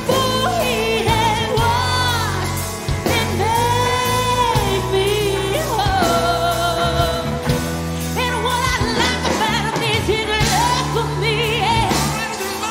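Gospel worship song: a singer holding long notes with vibrato over instrumental backing with held bass notes.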